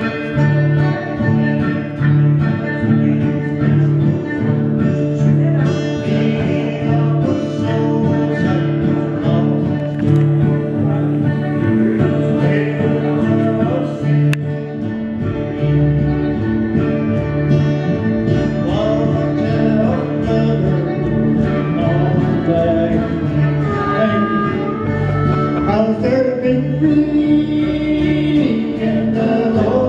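Acoustic guitars strumming a country song with a steady, pulsing bass-note rhythm. Voices singing join the guitars in the second half.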